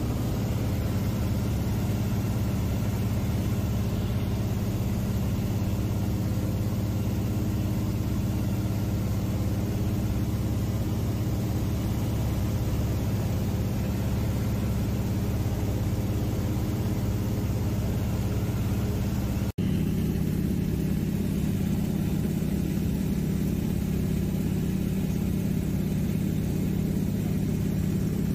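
Single-engine seaplane's piston engine and propeller droning steadily in cruise flight, heard inside the cabin. The drone cuts out for an instant about two-thirds of the way through.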